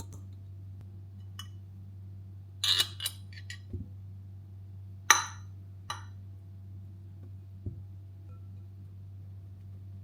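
Kitchen dishes and utensils clinking and knocking while baking ingredients are handled: a few quick clinks about three seconds in, one sharp ringing clink about halfway through, then a couple of lighter knocks, over a steady low hum.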